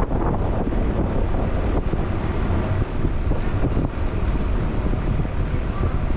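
Steady road and engine rumble of a vehicle being driven, with a deep, uneven low rumble like wind on the microphone.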